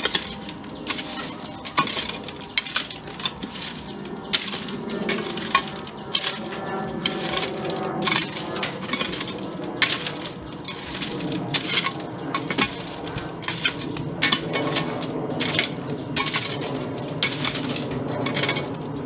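A garden hoe scraping soil back and forth over a wire-mesh sieve screen, with repeated sharp clinks and rattles as stones and the hoe blade hit the metal mesh: soil being sifted through into a tub below, leaving stones and roots on top.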